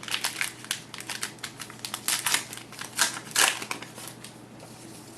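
Crinkling of a trading-card pack's wrapper being torn open and handled: a run of irregular crackles over the first three and a half seconds, then quieter.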